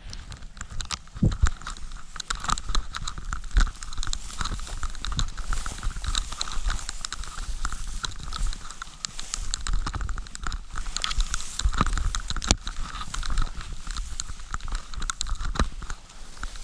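Wind rumble and handling noise on a hand-held action camera: irregular knocks, clicks and rustling, with a few sharper knocks.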